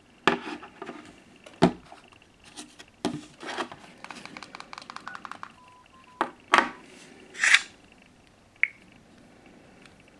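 Handling noises in a small room: a string of clicks, knocks and rustles, with a fast run of ticks about halfway through and a brief faint beep just after it. Two louder knocks follow, then a couple of small clicks near the end.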